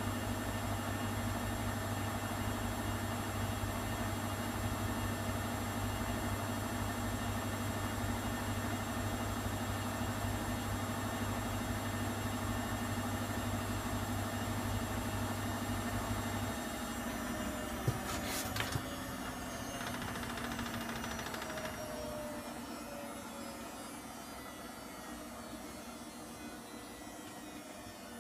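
Schulthess Spirit 6155 washing machine spinning empty at 1000 rpm: a steady motor hum with high whining tones. About two-thirds through the hum stops, a few clicks follow, and the drum winds down with falling tones as the level slowly drops.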